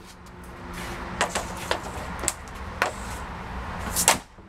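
Hockey stick and pucks on a plastic shooting pad: a few light clicks as the blade pulls and handles a puck, then one sharp, loud crack about four seconds in as the stick strikes the puck in a shot. A steady low rumble sits underneath.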